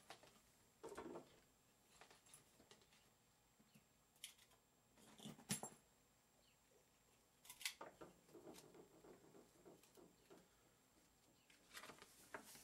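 Faint paper and packaging handling: a few short rustles and crackles, the loudest around five and a half seconds in, then a sharp click and light rustling near the middle as the quick start booklet is freed and opened.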